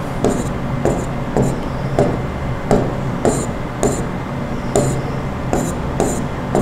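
A pen tapping and dabbing dots onto a writing board, about two taps a second, some with a short scratch, over a steady low hum.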